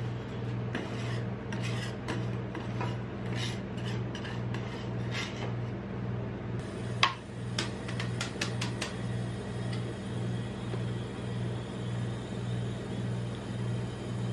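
Metal spatula scraping and tapping on the steel cold plate of a rolled-ice-cream pan: several scrapes in the first half, then a sharp clack about seven seconds in followed by a quick run of light ticks. Low pulsing background music runs underneath.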